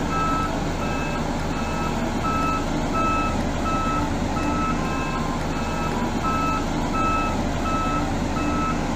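Dynapac CA250 single-drum road roller's reversing alarm beeping steadily, about twice a second, over the steady drone of its diesel engine.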